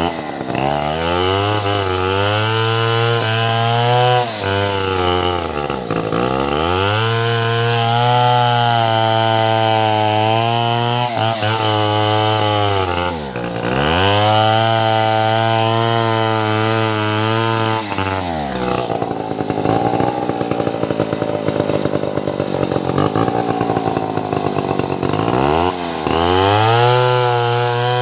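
Two-stroke chainsaw running at high revs, the throttle eased off and opened up again several times. About two-thirds of the way through, the steady engine note gives way to a rough grinding noise as the chain cuts into the albasia wood, and then the saw revs up again.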